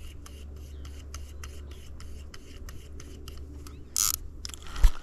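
Spinning reel ticking rapidly and evenly, about five ticks a second, during the fight with a hooked pike, its spin-direction (anti-reverse) lever bumped into neutral. A short sharp rush of noise comes about four seconds in, and a thump near the end.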